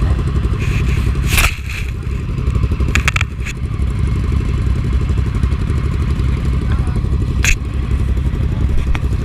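Triumph 675 motorcycle's three-cylinder engine running steadily, with a few short sharp clicks or knocks over it.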